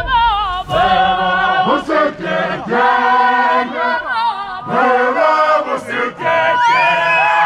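Several voices singing together without instruments, in phrases of held, wavering notes.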